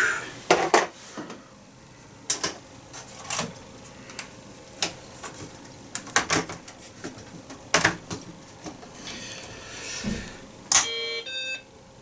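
Clicks and knocks of the BBC Micro Model B's keyboard and case being handled and seated. Near the end comes the computer's short two-part power-on beep: the machine has started up.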